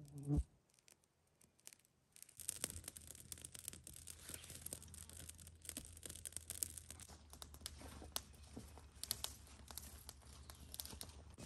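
A ferro rod struck once into a tinder bundle, a single short sharp scrape at the start. Then a small fire of dry sticks crackling, with many small irregular pops and snaps.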